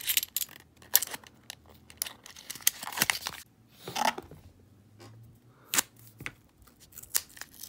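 Paper coin-roll wrapper of half dollars being torn open and crinkled, with sharp irregular clicks of the coins being handled.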